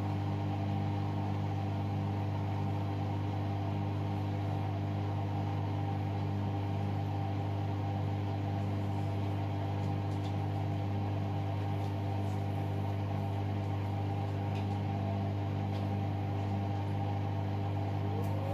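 Hoover All In One washer-dryer running with a steady low hum and overtones, even and unchanging throughout.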